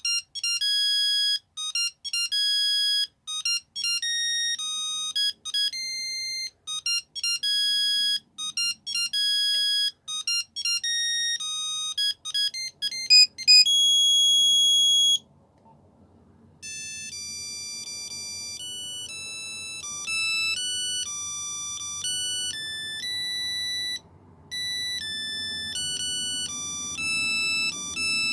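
Nokia 3210 monophonic ringtones, one beeping note at a time: a quick tune of short notes ends on a long held note about halfway through, and after a short pause another, slower tune begins.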